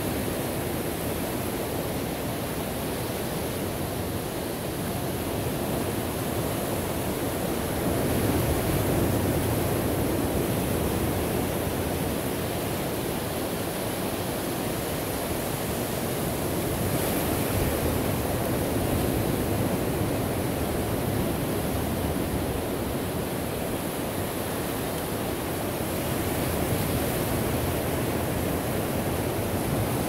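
Ocean waves washing on a shore as a continuous rushing surf, swelling gently about every nine seconds.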